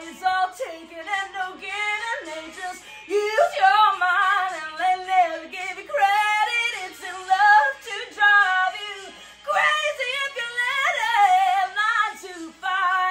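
A woman singing in a strong voice, with long held notes that waver with vibrato and slide between pitches. The singing stops right at the end.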